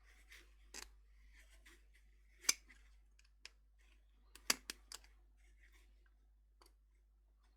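Sharp clicks and snaps of small hand tools working the black plastic part off a 4-pin mini XLR chassis-mount connector. The loudest comes about two and a half seconds in, with a quick run of three about two seconds later.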